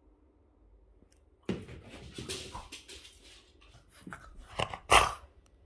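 Boston terrier running on a hard floor after a thrown rubber ball and bringing it back: a scrabbling, rustling stretch that starts suddenly about a second and a half in, then a few sharp knocks, the loudest near the end.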